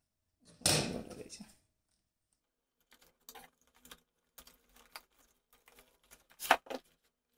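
An Amazon Echo Plus cardboard box being opened: a cut with scissors lasting about a second near the start, then light rustling, scraping and clicking of cardboard as the lid is lifted, the sharpest scrape about six and a half seconds in.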